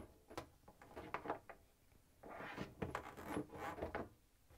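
Faint rustling and scraping with scattered light clicks as a corrugated plastic drain hose and a braided stainless steel water line are fed through holes in a wooden cabinet wall.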